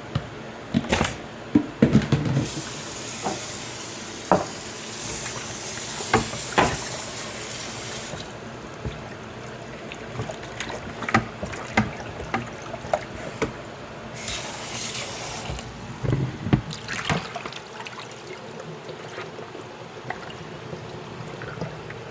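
Kitchen tap running while raw chicken is rinsed: a steady stream for several seconds, then a brief second run about halfway through, with scattered knocks and clatter as the pieces and bowl are handled.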